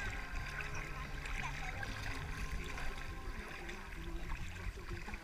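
Shallow seawater sloshing and lapping right at a camera held at the surface, with small splashes around a plastic kayak.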